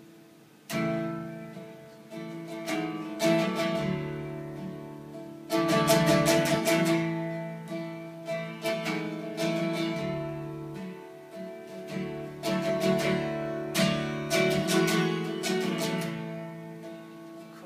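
Solo acoustic guitar playing a song's instrumental intro: picked and strummed chords that ring on, the first coming in sharply about a second in.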